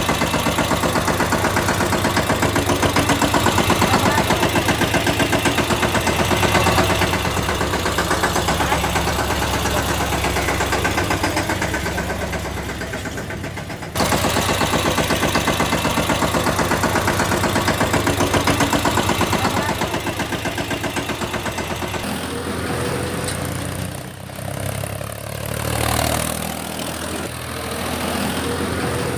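Tractor engine running with a fast, even chugging. The sound breaks off abruptly about 14 seconds in and resumes at once, then becomes quieter and more uneven near the end.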